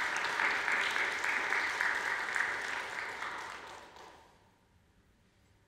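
Audience applauding, fading away about four seconds in.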